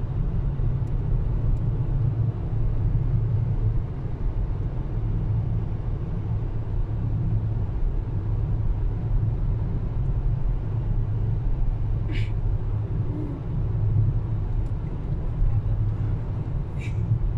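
Steady low rumble of road and engine noise heard inside a moving car's cabin, with two brief high-pitched ticks, one about twelve seconds in and one near the end.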